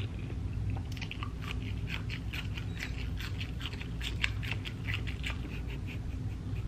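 Close-up chewing of asparagus spears: a run of small crisp clicks and crunches, two or three a second, over a low steady hum.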